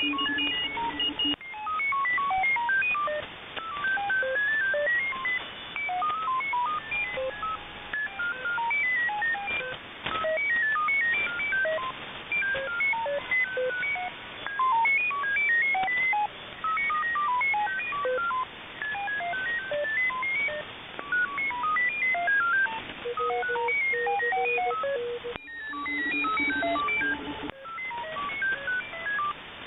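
Shortwave receiver audio of an MFSK digital-mode signal on the 30-metre band: a stream of short single beeps jumping irregularly in pitch, several a second, over steady radio hiss. The uploader asks whether it is a frequency-hopping transmission. The sound cuts abruptly a few times, and a steady low tone sounds briefly near the end.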